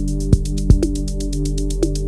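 Electronic dance music from a melodic house and techno DJ mix: fast, even hi-hat ticks and a held synth chord, with two deep kick-drum hits in the first second.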